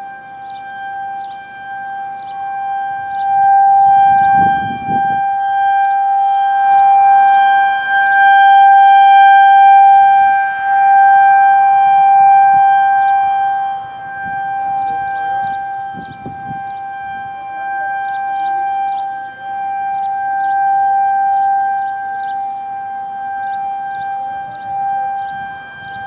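Federal Signal 2001 outdoor warning siren sounding a steady wail, holding one pitch while its loudness swells and fades every few seconds.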